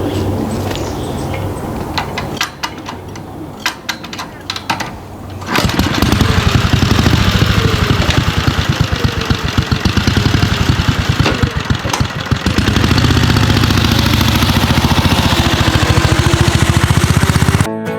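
A small engine starts after a run of sharp clicks: it catches about five and a half seconds in and runs loudly with a fast, even beat, its speed rising and falling. It cuts off abruptly near the end.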